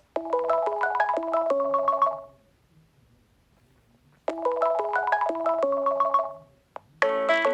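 Nokia 6.1 phone ringtone playing: a short melody of quick, clean notes, heard twice with about two seconds of silence between. Near the end a different, fuller ringtone starts.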